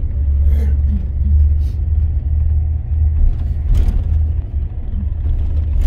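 A moving bus, heard as a loud, steady low rumble of engine and road noise.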